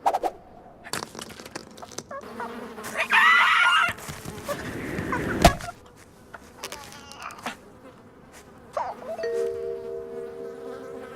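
Cartoon sound effects: scattered clicks, a short burst of bending squawk-like tones about three seconds in, and a rushing swell that ends in a sharp hit about five and a half seconds in. A steady insect buzz comes in near the end.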